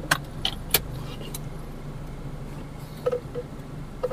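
Proton Saga VVT's 1.3-litre engine idling steadily, heard from inside the cabin, with several sharp clicks in the first second and a half as the automatic gear selector is shifted into drive.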